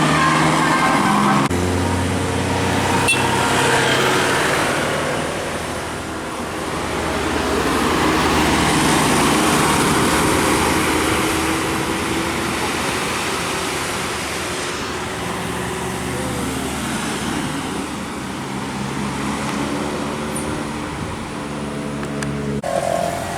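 Road traffic with vehicles going by: engine hum and tyre noise that swells as a vehicle passes, loudest about eight to eleven seconds in. The sound changes abruptly about a second and a half in and again near the end.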